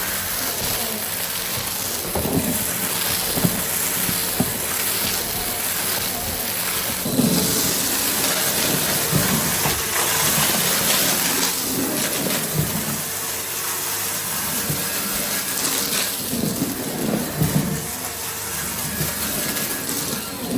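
Goodmans TurboMax vacuum cleaner running steadily: a rushing hiss with a high whine, broken by irregular knocks and rattles.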